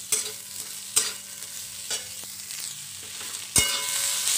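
Vegetables sizzling in hot oil in a metal kadhai, with a spatula knocking and scraping against the pan about once a second. Near the end there is a sharp metallic clank with a brief ring, and the sizzle gets louder as shredded cabbage goes into the pan.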